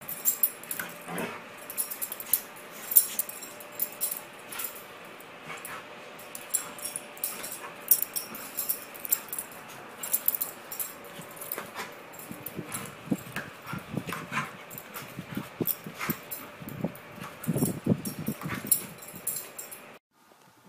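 A dog chasing its tail, making whimpers and short yips among many quick, sharp clicks and scuffles. The sounds bunch up and grow stronger in the last third, then stop abruptly.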